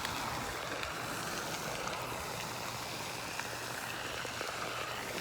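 Steady, even rushing background noise with no distinct events, like flowing water.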